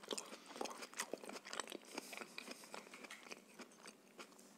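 Close-miked chewing: a mouthful of food being chewed, with many small crisp crunches and mouth clicks.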